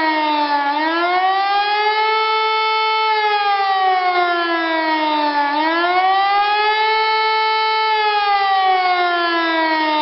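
Pneumatic high-power siren (HLS) sounding the German "Warnung" signal in a test: a rising and falling wail. The pitch drops to its lowest about a second in and again around the middle, climbing back and holding high in between, then falls again near the end.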